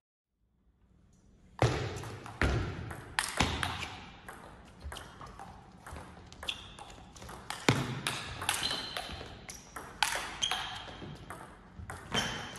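Table tennis rally: the plastic ball clicking sharply off the bats and the table in quick succession, echoing in a large sports hall. It starts about a second and a half in, after near silence.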